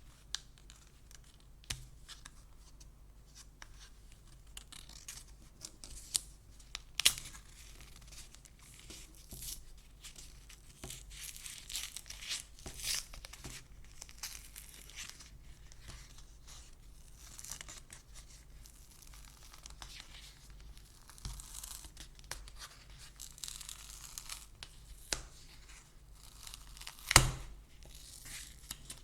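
Card packaging being opened by hand: tearing and crinkling of the wrapping, with scattered short clicks and taps. The loudest is a sharp knock near the end.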